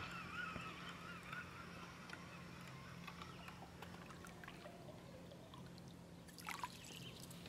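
Faint, wavering whir of a baitcasting reel being cranked as a bucktail is retrieved, dying away in the first couple of seconds. A short splash comes about six and a half seconds in as the lure's blade churns at the surface beside the boat.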